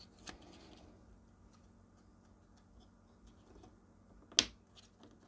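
Faint rustling and small ticks of a ZX81 replacement keyboard's plastic membrane ribbon being bent and handled. About four seconds in comes one sharp click as its tail is pushed home into the circuit board's connector.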